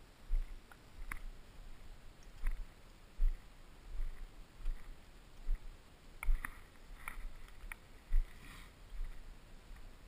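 Footsteps of a person walking through tussock grass: a dull thud at each stride, a little more than one a second, with grass swishing and rustling against the legs.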